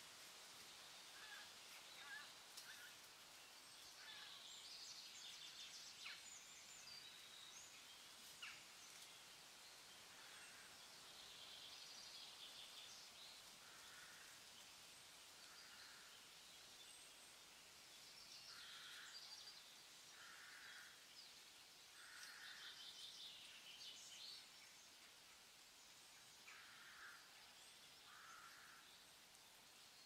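Faint birdsong in a woodland edge: scattered high twittering phrases over a steady hiss of outdoor background, with a short call repeated every second or two through the second half.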